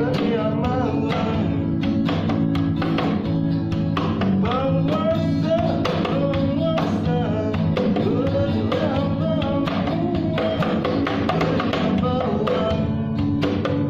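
Acoustic guitar strummed steadily in a pop-ballad rhythm, with a voice singing the melody over it.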